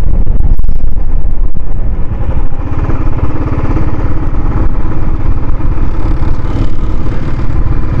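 Motorcycle running at road speed with heavy wind rumble on the microphone; a steadier engine note comes through about a third of the way in.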